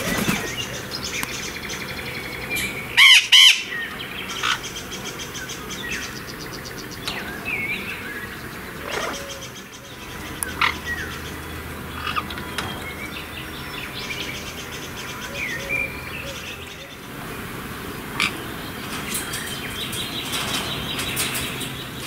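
Blue-winged macaws calling: two loud, harsh squawks in quick succession about three seconds in, then scattered short chirps and whistles.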